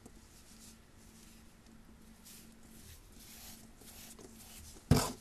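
Soft rustling of yarn and hands working a Tunisian crochet hook through the stitches, over a faint steady hum. Near the end comes one sudden loud knock, the loudest sound.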